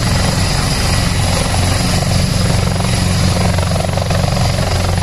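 Helicopter in flight: the rapid, steady chop of the rotor blades over a low engine drone.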